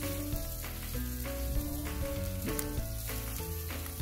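Slices of pork belly sizzling steadily on a flat metal griddle, over background music with a simple stepping melody.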